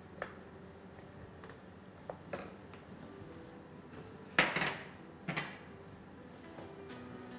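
A wooden spoon stirring and knocking in a stainless-steel saucepan on the stove, with a few short clattering knocks of pot and utensils. The loudest come about four and a half and five seconds in.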